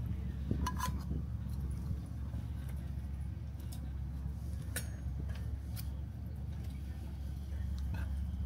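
Light clinks and scrapes of a rice paddle working cooked rice in a pot and knocking against stainless steel cups, a handful of short clinks spread through, over a steady low rumble.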